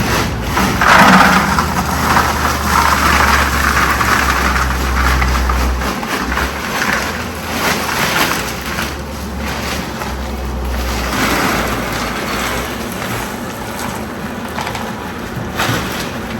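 Coal forge fire burning hot, a steady rushing noise with a low rumble that comes and goes.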